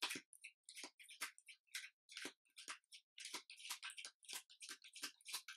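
A deck of tarot cards being shuffled by hand: a quick, irregular run of soft card snaps and slides, about four a second.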